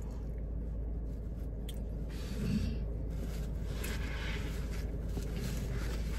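Soft rustling and scraping of a paper towel as it is pulled from a roll and rubbed over skin to wipe off sauce, over a steady low hum.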